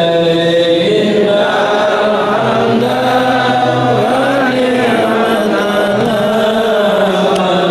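A group of men's voices chanting together in long held notes, a devotional Islamic chant sung by the congregation.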